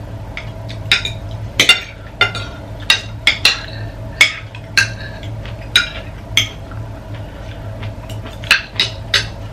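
Spoons and forks clinking and scraping against ceramic dinner plates as several people eat, a dozen or so irregular sharp clinks. They thin out for a couple of seconds after about six seconds, then come again near the end, over a steady low hum.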